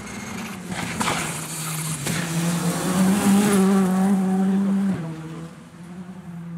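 Škoda Fabia R5 rally car's 1.6-litre turbocharged four-cylinder engine held at high revs as it slides through a gravel corner, with a sharp crack about a second in. The engine is loudest from about three seconds in, and its note drops abruptly near five seconds.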